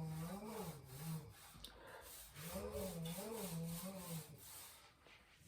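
Two drawn-out, wavering vocal sounds, each about two seconds long, the second starting about two and a half seconds in, over a faint rubbing noise.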